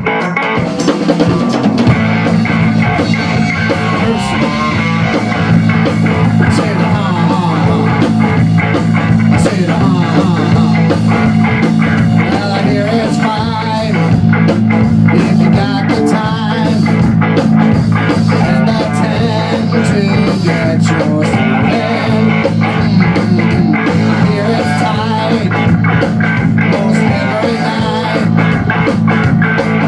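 Live rock band playing loudly in a small room: electric guitar, electric bass and a Tama drum kit, with a man singing into a microphone.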